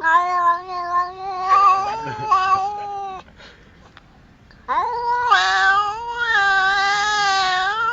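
A cat yowling in two long, drawn-out wavering calls. The first lasts about three seconds; the second begins after a short pause and runs on longer.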